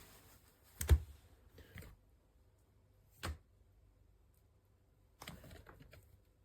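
Handling noises: a few scattered knocks and clicks, the loudest about a second in, another about three seconds in, and a short cluster near the end.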